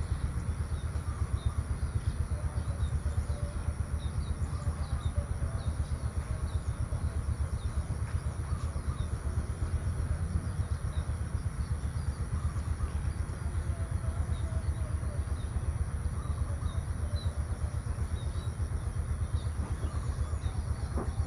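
Rural outdoor ambience: a steady low rumble under many faint, short bird chirps, with a steady high-pitched hiss.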